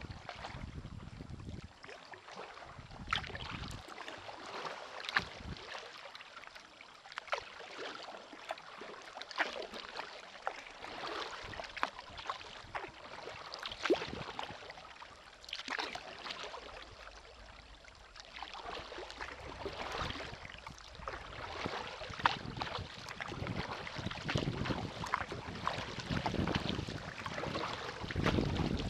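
Kayak paddle strokes in calm river water: the blade splashes in every second or two and drips between strokes.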